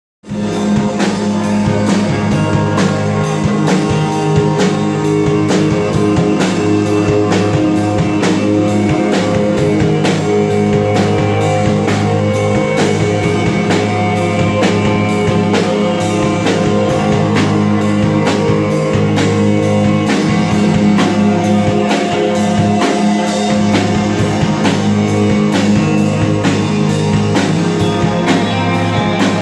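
Rock band playing live: two electric guitars, an electric bass and a drum kit keeping a steady beat. The music cuts in just after the start.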